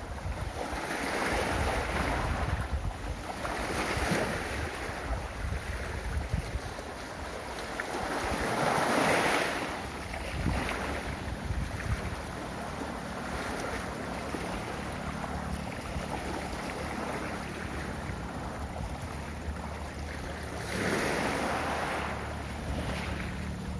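Ocean waves breaking and washing up onto a beach in slow swells, the largest surge about nine seconds in and another near the end.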